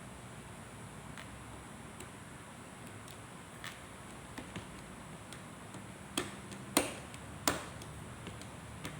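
Scattered small clicks and taps, with three sharper ones in quick succession past the middle, over a steady background hiss.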